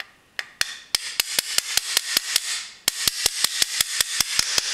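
Small hammer tapping the tight rear takedown pin into an airsoft lower receiver to seat the gearbox: quick, even taps at about five a second, with a short pause just past halfway.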